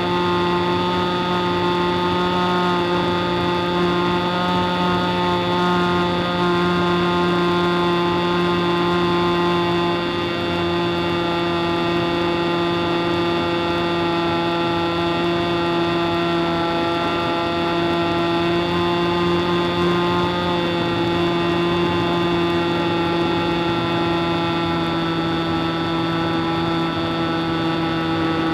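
Big Stick 60 RC model airplane's engine and propeller running at a steady, even pitch in flight, heard from on board.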